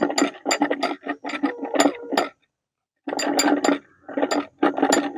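Homemade bite alarm: a metal nut hung on a wire rattles and clinks rapidly against a bottle as the line is tugged, the signal of a fish pulling the bait. The clinks come in quick runs, pause briefly about two and a half seconds in, then start again.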